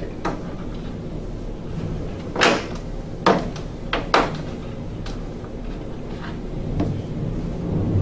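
Sharp knocks and clicks from a plug being worked out of and fitted into a Rheem gas furnace's sheet-metal cabinet, about seven in all, the loudest about two and a half seconds in.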